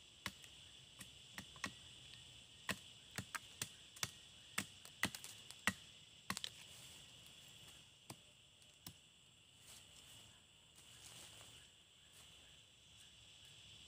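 Machete blade chopping at a hand-held wooden stick in quick, irregular strokes that thin out after about six seconds, over a steady high insect drone.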